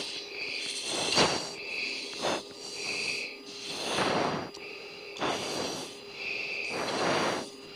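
Forced breaths hissing through an oxygen-mask microphone, about five, a second or two apart, over a faint steady cockpit hum. This is straining breathing of a crew member pulling G in a tight fighter turn.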